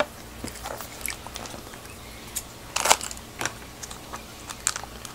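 Clear plastic fish-shipping bag crinkling and crackling in the hands, in scattered sharp bursts, the loudest about three seconds in.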